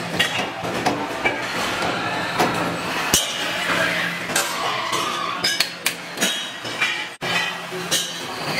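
Metalworking shop noise: frequent metallic clinks and taps over the steady hum of running machine tools, with a brief break about seven seconds in.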